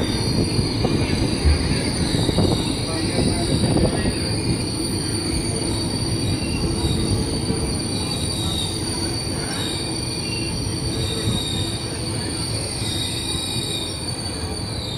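Indian Railways express coaches rolling slowly into a station, their wheels squealing under braking in steady high-pitched tones over a low running rumble. There are a few knocks in the first few seconds, and the sound eases off slightly as the train slows.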